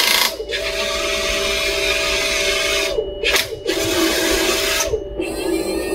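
Heng Long Merkava Mk IV RC tank's sound unit playing a turbine engine sound through its small built-in speaker, a steady hissing whine over two low hums. The turret traverse motor whirs as the turret turns. The hiss briefly cuts out about four times, with short pitch glides.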